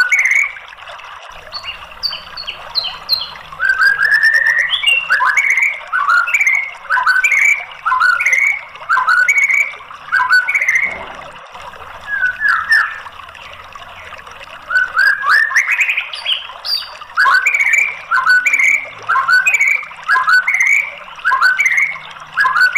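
White-rumped shama (murai batu) singing: short, quick whistled notes that slide up or down, repeated in phrases about once a second, with a short lull midway.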